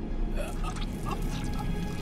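Film score music with a low steady drone and faint scattered high notes.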